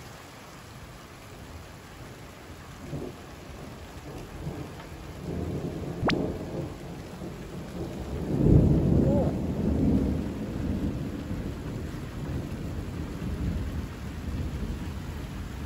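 Thunder rumbling over a heavy downpour. A deep rumble builds about five seconds in, is loudest around the middle, then trails off under the steady hiss of rain. A single sharp crack comes shortly before the loudest part.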